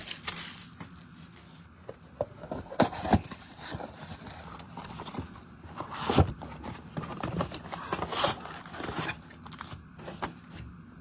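A trading-card box and its packs being opened and handled: irregular rustling, scraping and tapping of cardboard and wrapper, with sharper handling noises about three and six seconds in.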